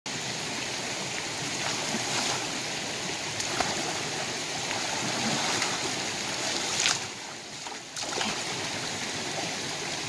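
Shallow rocky stream rushing steadily over stones, with a few short splashes as someone wades and reaches into the water.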